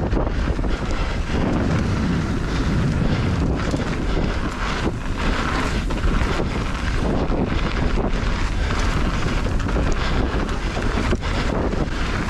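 Wind buffeting an action camera's microphone while a mountain bike rolls fast over a dirt trail, with tyre rumble and frequent short knocks and rattles from the bike.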